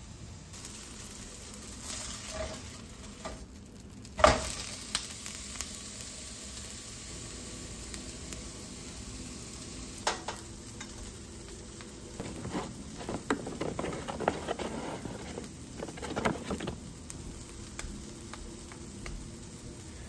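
Butter sizzling in a hot nonstick frying pan, a steady hiss. There is a sharp knock about four seconds in, and later a run of knocks and scrapes from kitchen utensils.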